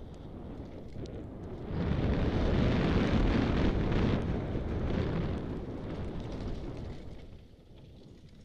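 Wind rushing over a helmet-mounted camera's microphone and tyres rumbling on a dirt trail as a mountain bike rides downhill at speed; the rush gets much louder about two seconds in and dies down near the end.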